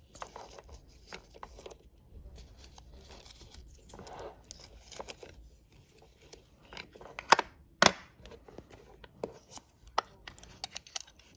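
Sticker paper rustling and peeling as stickers are pulled off their backing and pressed down by hand, with scattered light taps and clicks. Two sharper clicks come about half a second apart a little past halfway, the loudest sounds here.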